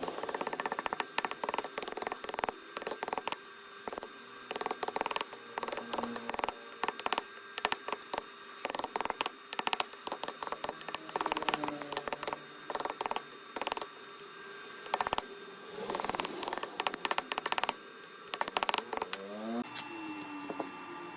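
Rapid, irregular clicking and tapping in quick runs, over faint background music.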